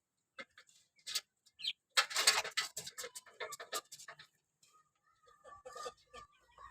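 Chickens clucking and squawking in short, irregular calls mixed with sharp clicks, loudest about two seconds in.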